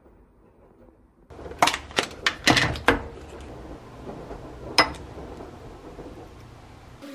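Faint room tone, then a quick run of sharp clinks and taps from a metal spoon and a small ceramic ramekin on a kitchen counter as a sauce is spooned together, with one more clink a couple of seconds later.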